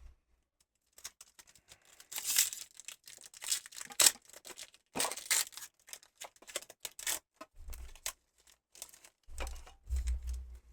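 A trading-card booster pack wrapper being torn open and crinkled, with cards being handled. It comes as several short bursts of tearing and rustling, the strongest about two and five seconds in, with light clicks and taps between them.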